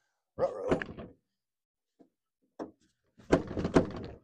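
Clunks and knocks of a BMW E39's hood latch and release being worked by hand through the empty kidney-grille opening, in two groups: one about half a second in and another near the end.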